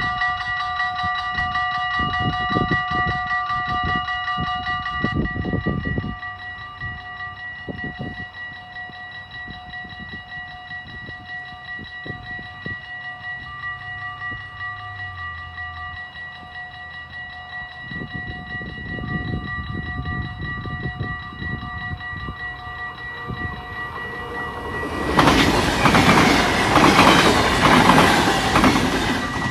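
Level-crossing warning bells ringing steadily, louder and fuller for the first five seconds as the barriers come down, then softer. From about eighteen seconds in a train's rumble builds, and a double-deck electric passenger train passes loudly near the end.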